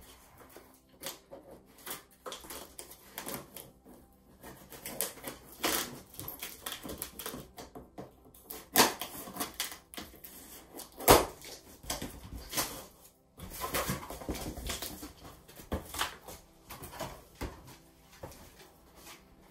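Scissors cutting through the corrugated cardboard of a TV carton: a series of irregular snips, scrapes and cardboard crunches. The sharpest come about nine and eleven seconds in.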